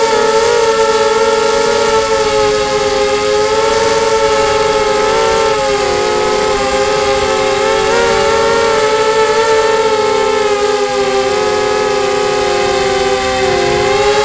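QAV250 quadcopter's four 2204 2300Kv brushless motors spinning 5x3 propellers, heard from the camera on the quad: a loud whine of several close pitches that waver up and down, dipping briefly near the end.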